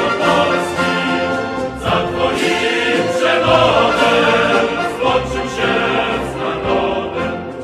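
Music with a choir singing in held notes.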